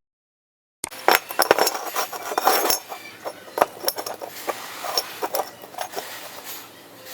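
Metal clinking and knocking: a quick, irregular series of sharp taps and clanks of steel pieces being handled, starting just under a second in after a short dead silence.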